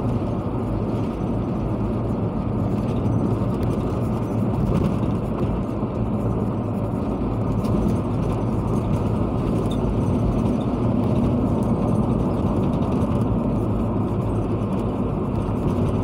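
Steady engine and road noise of a moving car, heard inside its cabin: an even low rumble with no breaks.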